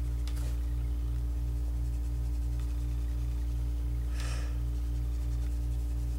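Steady low hum with a throb pulsing about three times a second, under two brief, soft scratches of a mechanical pencil shading on paper, one just after the start and a stronger one about four seconds in.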